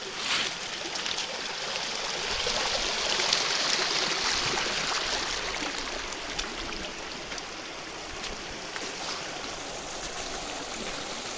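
Stream water running, a steady rushing that grows a little louder a few seconds in and then settles.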